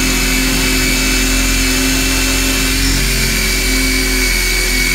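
DeWalt cordless drill running steadily in forward with its motor whining, a screw-extractor bit drilling out the head of a stripped screw.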